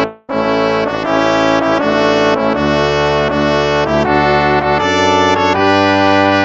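Instrumental hymn played on brass, in slow held chords that change twice. The sound breaks off for a moment just after the start.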